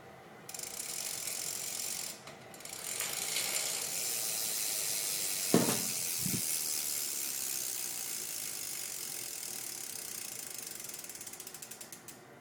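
Rear hub of a Hyper Spinner Pro BMX ratcheting loudly as the wheel is spun: a short burst, a brief pause, then a long run of clicking whose pawl clicks slow down and spread out toward the end, with one knock partway through. The hub is unsealed and has been loud and slightly stuck since degreasing, which the owner puts down to over-tightening one of the cones.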